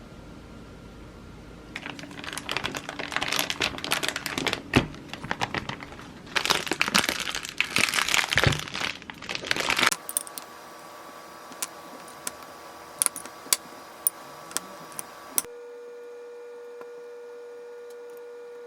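Plastic packaging crinkling and crackling as it is handled, in two busy spells over the first half. A few separate sharp clicks follow, and a steady even tone sets in for the last few seconds.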